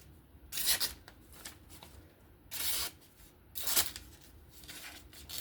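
Sheepsfoot Wharncliffe knife blade slicing through paper in several short, rough swishes a second or so apart: an edge test on a blade that is still snagging and needs sharpening.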